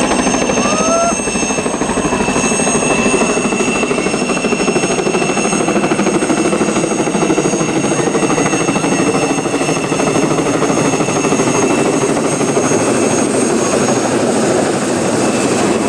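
Police helicopter flying low overhead as it comes in to land: a loud, steady rotor beat with a high steady turbine whine over it.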